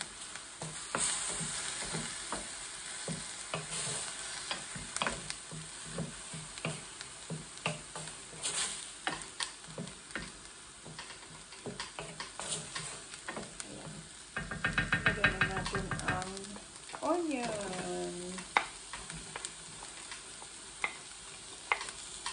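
Wooden spoon stirring and scraping minced aromatics frying in a stainless steel skillet: a light sizzle with many small taps and scrapes of the spoon on the pan. About two-thirds of the way in, a loud buzzing rattle lasts a second and a half, then a short sound glides down and up in pitch.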